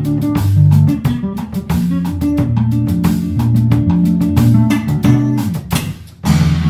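Electric bass guitar playing a busy line of plucked notes over a drum kit keeping time. Shortly before the end the sound drops away for a moment, then comes back in with a loud hit.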